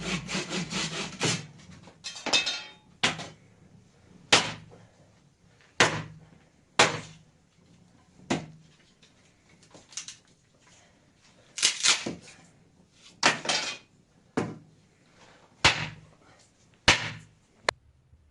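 Hand sawing of wood in quick strokes that stops about a second in. It is followed by a series of single sharp knocks on wood, about a dozen, spaced a second or so apart.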